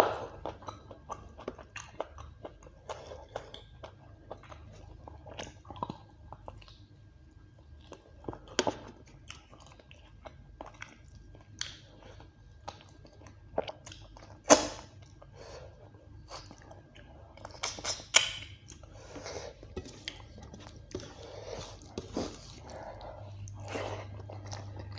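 Close-up eating of beef curry and rice: steady chewing and wet mouth sounds, with a few louder, sharp crunching bites spread through. A low steady hum comes in near the end.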